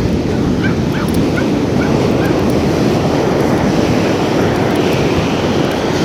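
Steady rush of surf and wind on the microphone. In the first two and a half seconds, a row of about six short, high, rising animal calls sounds over it.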